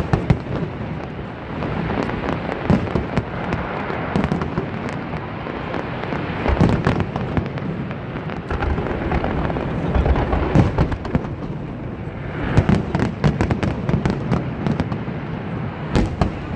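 Aerial fireworks shells bursting one after another over a continuous rumble, with a run of quick sharp crackles about three-quarters of the way through.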